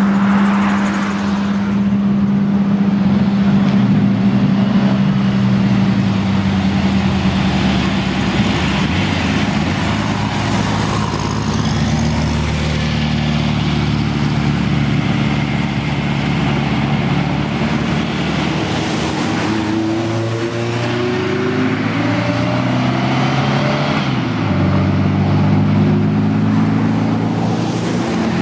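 Car engines as cars pull away: one engine holds a steady idle for the first several seconds, then several engine notes overlap, rising and falling as the cars rev and move off.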